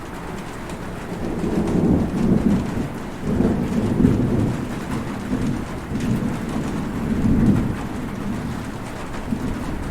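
Heavy rain falling steadily under a long rolling thunder rumble that builds about a second in and rolls on in waves.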